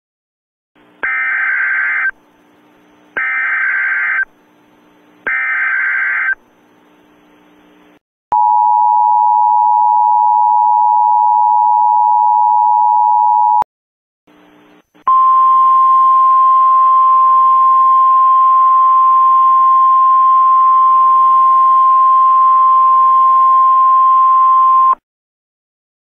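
Emergency Alert System warning tones: three short bursts of the screechy digital header, then the two-tone attention signal, a steady pair of tones held for about five seconds. After a short gap comes a single steady tone for about ten seconds over a faint hiss.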